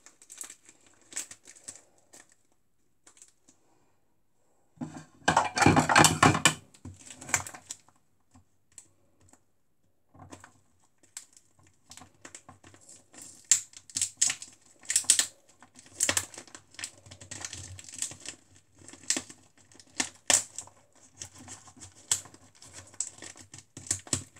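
A knife cutting and picking at the sealed top of a rice packet: a run of irregular light clicks and taps, with a louder stretch of rustling handling about five seconds in.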